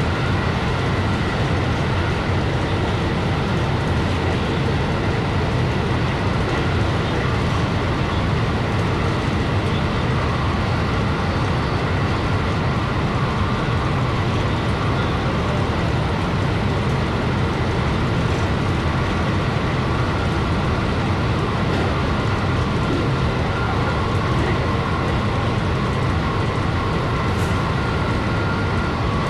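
JR West 223 series electric train running at full line speed, about 122–124 km/h: a steady heavy rumble of wheels on rail and running gear, with faint steady high tones above it.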